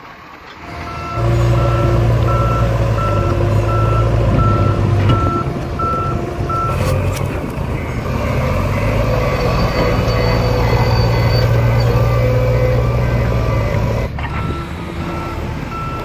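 Diesel engine of a JCB 3DX backhoe loader running loud and steady, with its reversing alarm beeping at an even pace, about one and a half beeps a second. The beeping stops a little under halfway through and starts again near the end.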